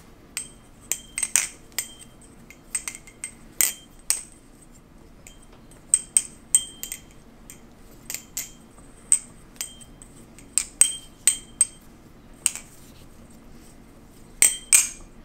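Squid Industries Weehawk Kraken butterfly knife being flipped: an irregular run of sharp metallic clicks and clacks as the speed-channelled handles swing around the pivots and hit the blade, each with a short high ring.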